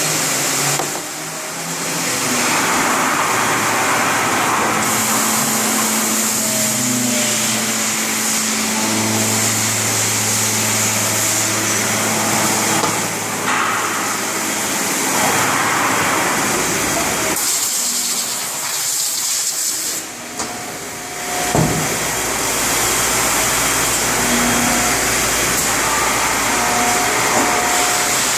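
CNC machine running: a steady hiss with short motor tones that shift up and down in pitch as it moves.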